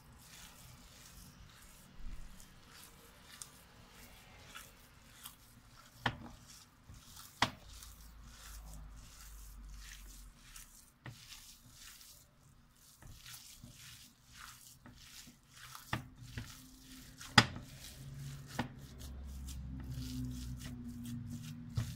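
Hands kneading raw minced meat in a glass bowl: soft squelching and squishing, broken by scattered sharp clicks and taps against the bowl, the loudest about three-quarters of the way through.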